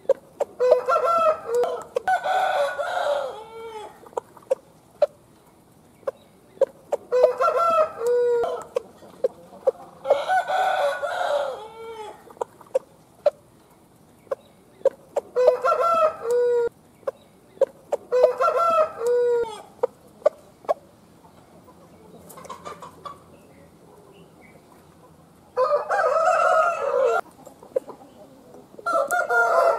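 Game roosters crowing again and again, a crow of a second or two every few seconds, one of them fainter, with short sharp ticks in between.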